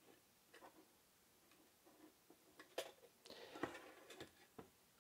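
Faint handling sounds from a Pocket Kodak box camera's inner frame being turned in the fingers: scattered small clicks and taps, with a sharper click near the middle and a brief scrape just after.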